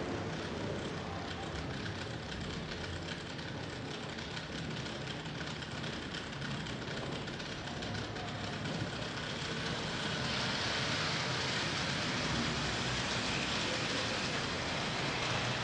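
N-scale model train running along the track: a steady whir and rattle of the small motor and wheels over the rails, growing louder and brighter about ten seconds in as it comes nearer.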